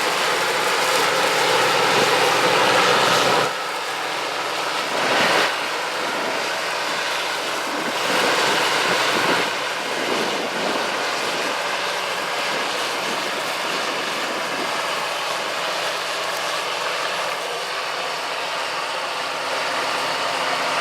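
Heavy farm machinery running, a steady engine drone under a rushing mechanical noise that swells louder a few times in the first half.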